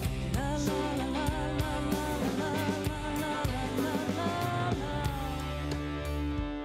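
Live band playing a slow country-rock song: a wavering lead melody with vibrato over bass, guitar and a steady drum beat.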